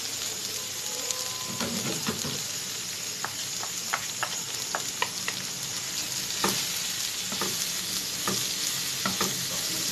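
Sliced onions, bell peppers and spices sizzling steadily in oil in a ribbed grill pan, stirred with a wooden spoon that scrapes and knocks lightly against the pan many times.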